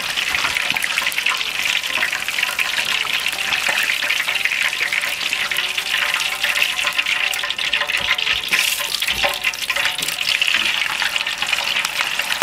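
Hot oil sizzling and crackling steadily around pieces of swimming crab dusted in potato starch as they deep-fry for karaage.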